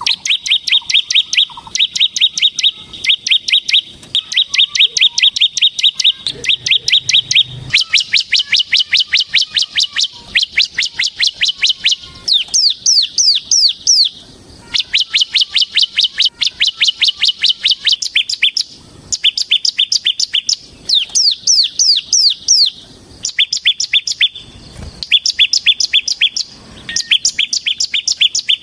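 Bar-winged prinia (ciblek semi) singing a loud, rapid trill of sharp repeated notes, many a second, in bursts of one to two seconds with short breaks between them. This is the continuous rattling song that keepers call "ngebren".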